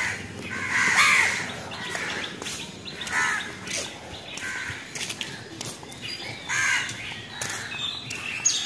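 Crows cawing: several caws in a row, the loudest about a second in.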